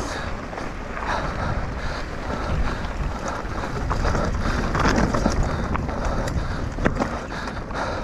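Wind rushing over an action camera's microphone on a fast mountain bike descent, mixed with tyre noise and the bike rattling, with a few sharp knocks in the second half.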